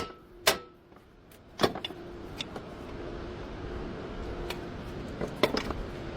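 Car sound with a low rumble and a steady hum, broken by several sharp clicks and knocks, one about half a second in, another about a second later and a few close together near the end.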